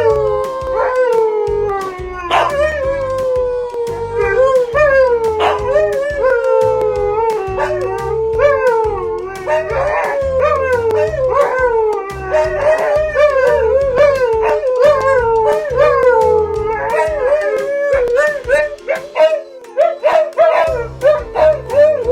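Siberian husky howling: a run of long, wavering howls, one after another, each sliding down in pitch, breaking into shorter, choppier calls near the end.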